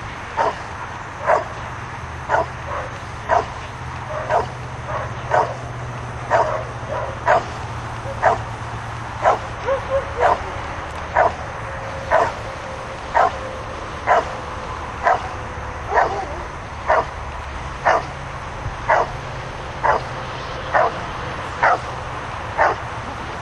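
Rottweiler barking steadily at a helper standing in the blind, about one bark a second: the hold-and-bark at the blind in a Schutzhund protection routine.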